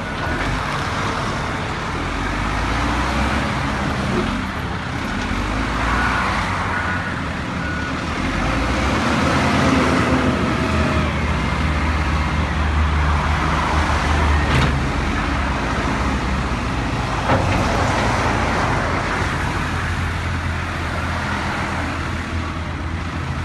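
Caterpillar 924F wheel loader's diesel engine running, growing louder through the middle. Two short sharp knocks come past the middle.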